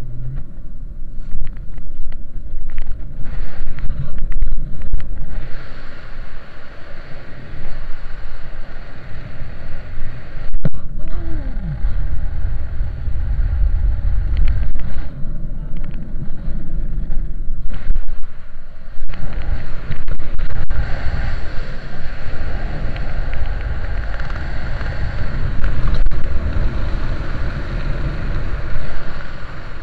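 Wind buffeting the camera microphone during a descent under an open ram-air parachute canopy: a loud, gusty rumble that rises and falls.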